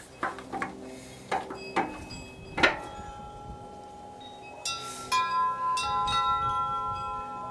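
A few sharp knocks, then wind chimes struck and ringing. The loudest strike comes a little over two and a half seconds in and rings on in one long tone. More strikes a couple of seconds later add several tones of different pitch that ring together.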